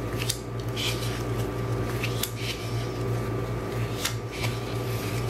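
Sticker sheets handled, with short paper rustles and light taps every second or so over a steady low hum.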